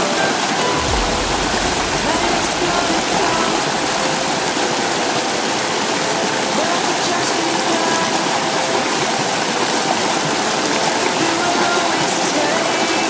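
Stream water rushing over rocks, a steady, even rush.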